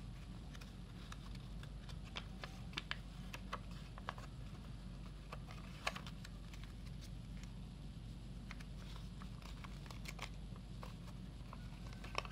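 A sheet of origami paper being handled and folded by hand: scattered light crinkles and rustles with a few sharper snaps as creases are pressed, the loudest about halfway through and near the end. A steady low hum sits underneath.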